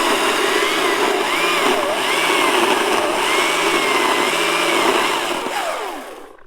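GreenWorks Commercial battery chainsaw running under power, its electric motor whine repeatedly dipping and recovering in pitch as the chain bites into the wood. Near the end the trigger is released and the motor winds down to a stop.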